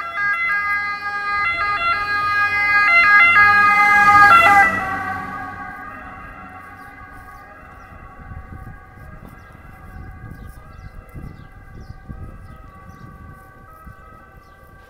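Ambulance siren alternating between two pitches, loudest about four seconds in, then fading away into the distance.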